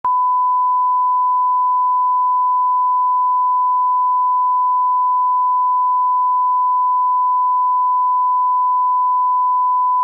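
A 1 kHz line-up tone, the reference tone that goes with broadcast colour bars for setting audio levels. It is one steady, unbroken sine tone.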